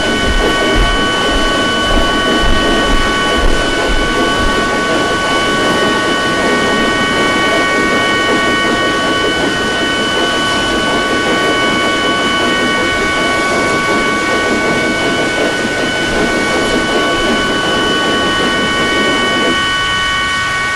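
Logo soundtrack run through the stacked pitch-shift "G Major" effect: a steady chord of several held high tones over a dense, harsh noisy wash. The low wash thins out near the end.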